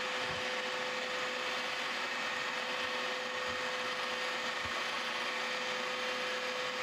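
Milling machine with an end mill making a roughing cut, slotting a keyway into a round metal bar. It is a steady running sound with a constant mid-pitched tone over the hiss of the cut.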